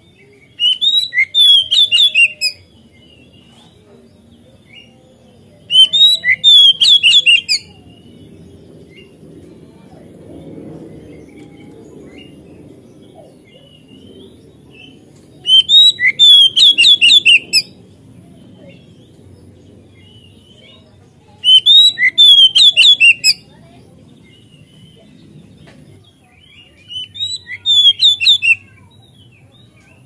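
Oriental magpie-robin singing in five loud bursts of rapid, varied whistled notes, each lasting about one and a half to two seconds, with pauses of several seconds between them.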